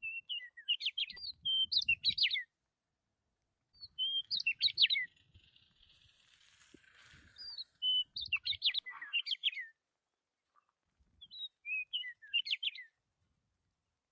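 A small songbird singing in four short bursts of quick, rapidly rising and falling chirps, with pauses of a second or two between bursts.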